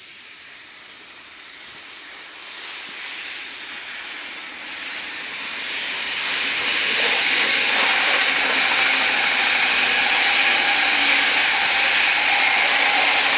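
Belgian double-deck push-pull passenger train passing at speed, pushed by an electric locomotive: a rushing hiss of wheels on rail and moving air that grows from faint to loud over the first six seconds and stays loud as the carriages go by.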